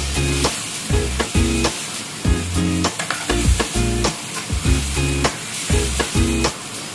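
Curry sizzling in a frying pan while it is stirred, under background music with a steady beat.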